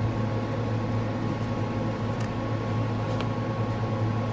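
Steady low mechanical hum of room equipment, with a couple of faint clicks about two and three seconds in.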